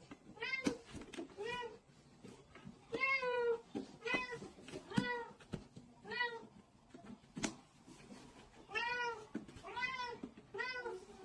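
Domestic cat meowing over and over, about ten short rising-and-falling meows roughly a second apart, with a few sharp clicks in between.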